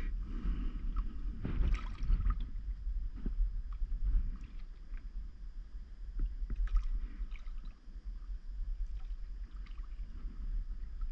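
Water splashing and lapping against a stand-up paddleboard in irregular washes, with a few sharp ticks, over a steady low rumble.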